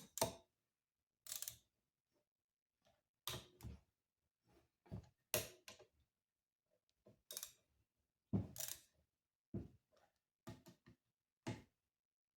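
Scattered short metallic clicks and clacks, about a dozen spread unevenly, of hand tools and bolts being handled while a part is bolted onto the block of a 1932 Maytag washing-machine engine.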